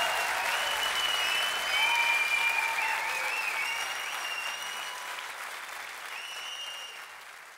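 Concert audience applauding, with a few long, high whistles over the clapping. The whole sound fades out steadily.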